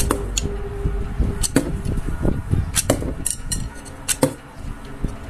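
Homemade wooden rubber-band repeating slingshot firing darts in succession: sharp snaps and clacks of the bands releasing and darts striking the target, several shots about a second apart, some in quick pairs.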